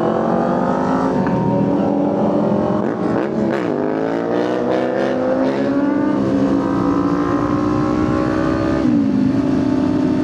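Kawasaki Ninja 500's parallel-twin engine under way, heard from the rider's seat with wind noise over the microphone. Its pitch climbs steadily as the bike accelerates, with a brief dip about three seconds in and a drop near the end.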